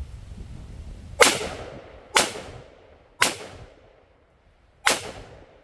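Four gunshots from a pistol or rifle at a firing line, about a second apart, with a longer pause before the fourth, each followed by a short echo.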